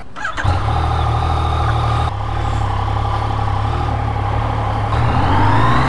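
Yamaha MT-09's 847 cc inline-three engine cold-starting about half a second in and then running steadily. Near the end the revs rise as the bike accelerates.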